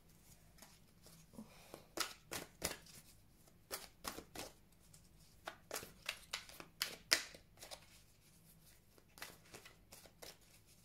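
A deck of tarot cards being shuffled by hand: a run of irregular card slaps and flicks starting about two seconds in, with a short lull before a last flurry near the end.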